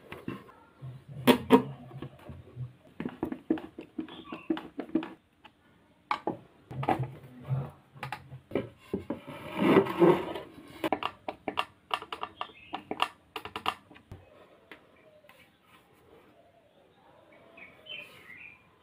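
Wooden boards and strips handled and knocked together on a workbench: a run of clicks and knocks, with two short low hums, going quiet for the last few seconds.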